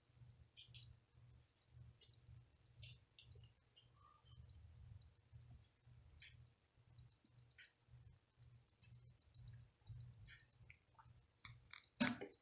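Faint, irregular clicking and ticking over a weak low hum from a Prusa i3 MK3 3D printer as it finishes heating its bed before resuming a print, with one louder click near the end.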